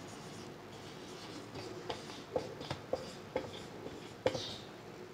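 Marker pen writing on a whiteboard: a string of short taps and scratches as the letters are drawn, starting about two seconds in, the sharpest a little past four seconds.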